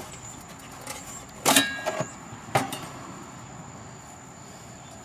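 Metal parts knocking together: a loud clank with a brief metallic ring about a second and a half in, followed by two smaller knocks.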